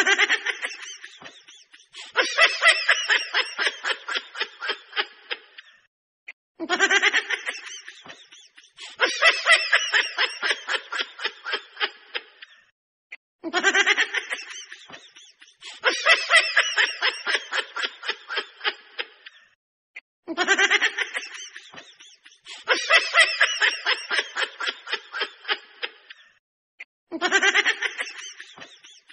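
A recorded laugh played on a loop: each round is a short burst followed by a longer run of rapid ha-ha pulses that fades out. It repeats the same way about every seven seconds.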